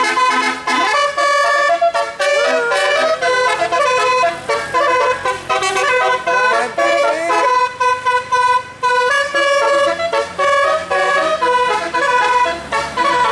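Bus telolet: a multi-note musical air horn playing a fast melody, one note after another in quick steps with a few sliding notes, without a break.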